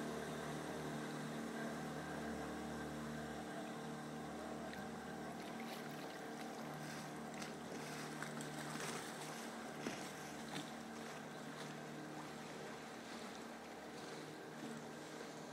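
Boat engine running steadily at low revs, slowly growing fainter, with a few faint clicks midway.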